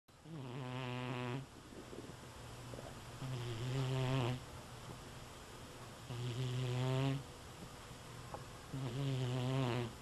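A sleeping black-and-white cat snoring: four snores, each about a second long, coming about every three seconds with its breathing, and softer breath noise between them.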